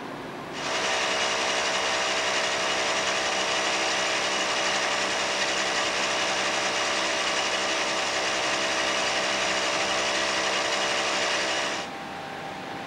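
Steady loud hiss of steam escaping from the Ok22 steam locomotive, with several fixed whistling tones in it; it starts suddenly about half a second in and cuts off abruptly near the end.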